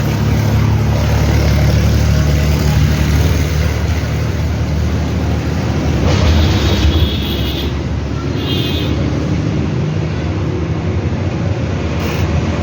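An engine running close by: a steady low rumble that eases a little about six seconds in.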